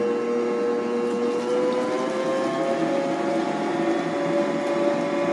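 Electric stand mixer with a center-post bowl running steadily as it beats carrot cake batter. Its whine rises slightly in pitch about two seconds in, then holds steady.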